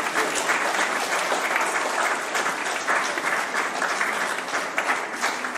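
Audience applauding: many people clapping together in a dense, steady patter that thins out near the end.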